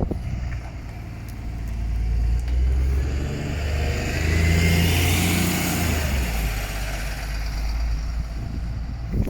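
Wright Pulsar 2 bus's Cummins ISB diesel engine running under way with road noise; the engine and rush swell over a few seconds, then ease off.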